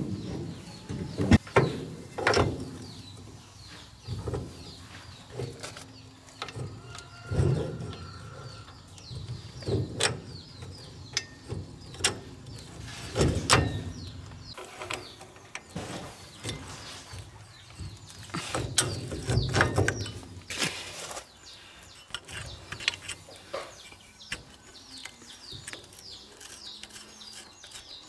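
Metal clinks and knocks at irregular intervals as hand tools and parts are worked on a rickshaw drive shaft's universal-joint flange at the rear axle.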